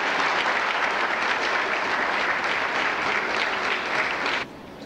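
Audience applauding, a dense, even clapping that cuts off suddenly near the end.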